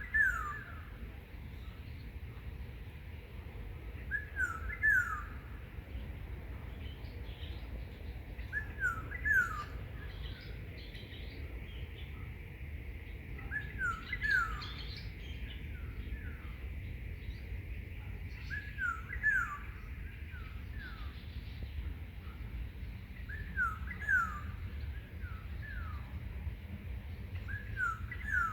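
A songbird repeating a short phrase of two or three quick falling whistled notes about every five seconds, with fainter high chirps from other birds in between, over a steady low rumble.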